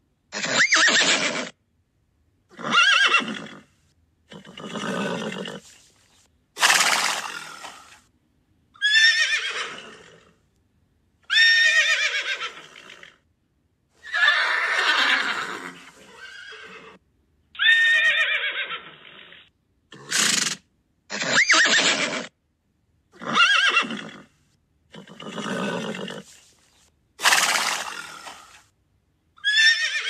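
A series of horse neighs and whinnies, about fourteen separate calls, each a second or two long with silent gaps between. The calls differ in pitch and brightness from one to the next.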